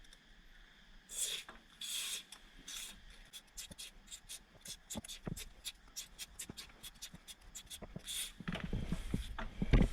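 Aerosol can of LS Bell Hammer Gold lubricant spraying in short hissing bursts onto a drive shaft's outer CV joint: three bursts in the first few seconds, then a long run of quick clicks, with one more brief spray near the end. The lubricant is being tried to silence the joint's clicking noise.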